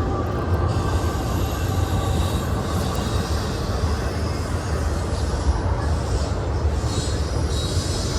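Steady rumbling noise, heaviest at the low end, with a hiss in the upper range rising near the end.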